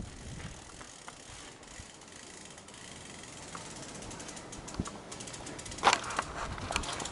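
Mountain bike's rear freewheel hub ticking rapidly while coasting, with rattles from riding over rough trail and a louder clatter about six seconds in.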